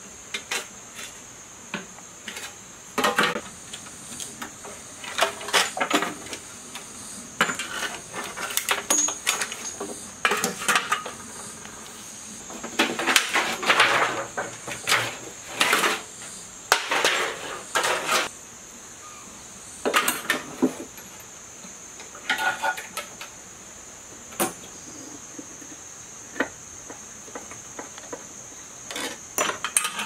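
Irregular metallic clanks, rattles and scrapes of rusty steel generator covers and a screwdriver being worked and handled as a broken generator is taken apart, busiest in the middle. Underneath, a steady high insect drone.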